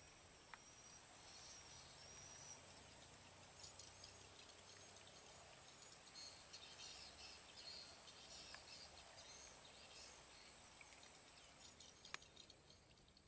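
Near silence: faint rural outdoor ambience with a steady high insect drone and scattered faint bird chirps, broken by a few faint sharp clicks.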